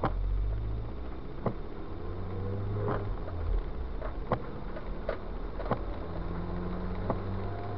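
A car driving on a wet road, heard from inside: a low steady drone of engine and tyres with a faint buzzing hum, and a sharp tick about every second and a half.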